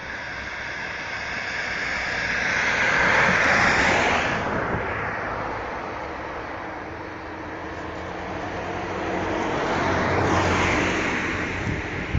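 Two motor vehicles passing by one after the other, each a rushing sound over a low engine hum that swells and fades: the first peaks about three to four seconds in, the second about ten seconds in.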